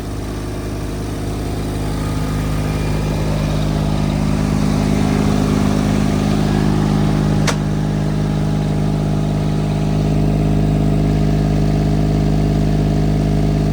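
Diesel engine of a 2022 iCougar CG827 compact track loader running at a steady speed, growing louder over the first few seconds and then holding, with a single sharp click about halfway through.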